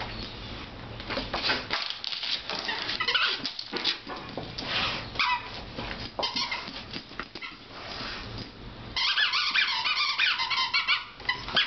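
A blue KONG Wubba squeaky dog toy squeaking in irregular bursts as a dog bites and shakes it, with a fast run of squeaks near the end.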